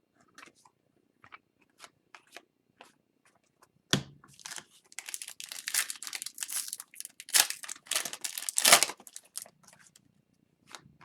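A hockey card pack wrapper being torn open and crinkled, starting with a sharp rip about four seconds in and going on for about five seconds. Before that, a few faint ticks.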